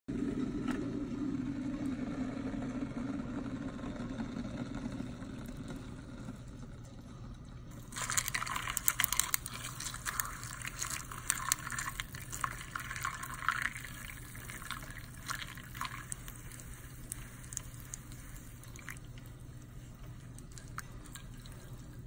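Boiling water poured onto ice cubes in a ceramic bowl: about eight seconds in the pour starts with splashing and a dense run of sharp crackles as the ice cracks from the heat, thinning after several seconds to scattered pops and clicks. Before the pour there is a low steady rush.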